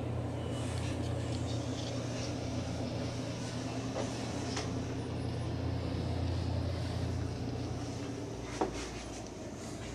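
Steady low hum of the yacht's onboard machinery, with a few light knocks and clicks scattered through it and one sharper knock near the end.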